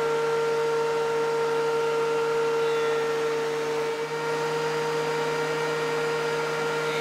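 DeWalt benchtop thickness planer running with a steady motor hum and whine as boards are fed through to flatten their glue faces.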